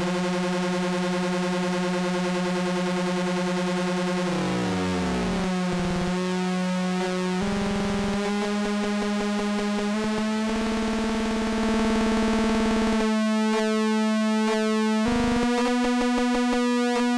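Moog Mother-32 analog synthesizer sustaining a pulse-wave tone, its LFO running at audio rate and modulating pulse width and oscillator pitch, which adds a cluster of extra tones. The extra tones glide and shift as the LFO rate is turned by ear to lock in with the note, and the pitch steps up three times.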